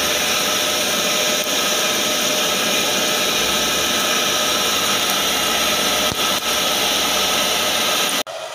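Air blower forcing air into a charcoal forge while a blade heats: a steady, loud rushing hiss with a faint hum. It cuts off abruptly near the end.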